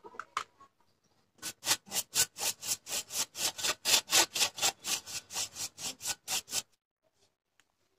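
A paintbrush scrubbing paint onto a rusty sheet-metal chassis panel in quick back-and-forth strokes, about four a second. The strokes start about a second and a half in and stop well before the end. A few faint clicks come at the start.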